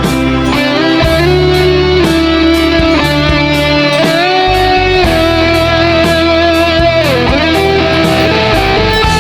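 Difergio MSV electric guitar playing a blues lead line of held notes with string bends about four and seven seconds in, over a backing of bass and drums.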